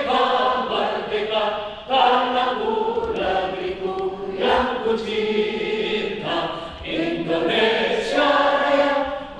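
Choir singing a slow song in long held notes, the phrases changing about every two seconds.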